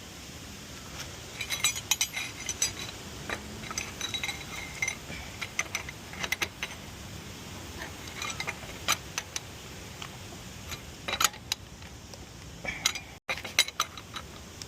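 Wheel nuts being done up with a metal wrench: irregular metallic clicks, ratcheting and short ringing clinks of tool on nut and wheel.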